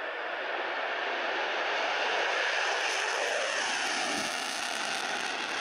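MiG-31 Foxhound's twin afterburning turbofan engines on takeoff, a steady jet roar. A whine within it falls in pitch from about three seconds in as the aircraft passes.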